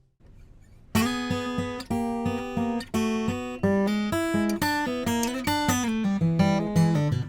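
Eastman E1D dreadnought acoustic guitar (spruce top, sapele back and sides) being played, unamplified. After a brief silence it starts about a second in, with notes and chords picked one after another and left ringing.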